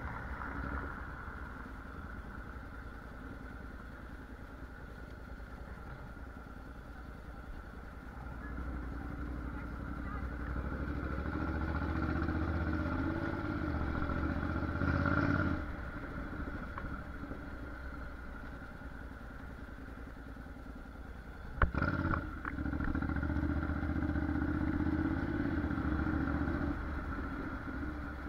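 Honda NC750X DCT's parallel-twin engine running under way at low town speed. It pulls louder for two stretches of several seconds, once in the first half and once in the second. A single sharp knock comes just before the second pull.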